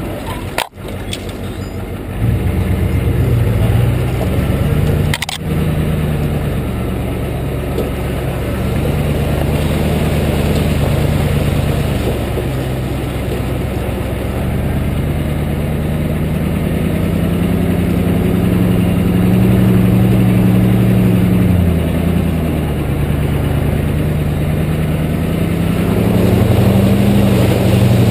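A Ford F-250's 7.3-litre IDI V8 diesel engine running at low speed as the truck drives off-road, its pitch slowly rising and falling with the throttle, heard close up at the front fender. A sharp knock sounds about five seconds in.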